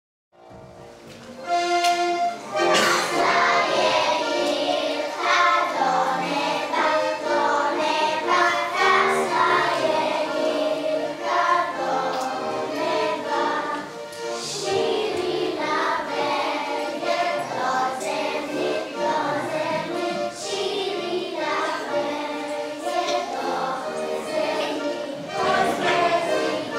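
A group of young children singing together to accordion accompaniment, a folk song for a ring dance, starting about a second in after a brief silence.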